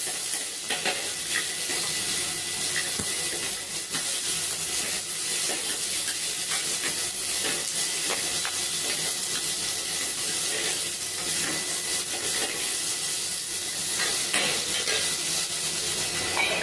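Vegetables sizzling in a hot aluminium pot while a wooden spatula stirs them, with many small scraping knocks of the spatula against the pot over a steady frying hiss.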